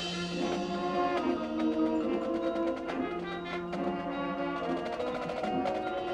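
High school marching band playing a slow passage: sustained chords, with a few scattered percussion strikes.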